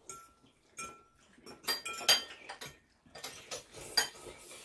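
Metal fork clinking and scraping against a bowl while food is picked up, several sharp clinks with short ringing; the loudest come about two seconds in and near four seconds.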